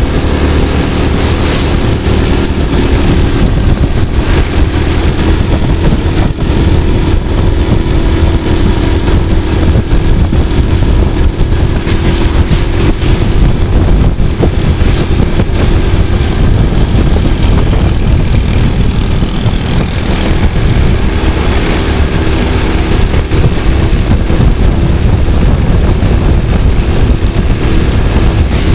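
A motorcycle running steadily at road speed, its engine drone half buried under loud, constant wind buffeting on the microphone.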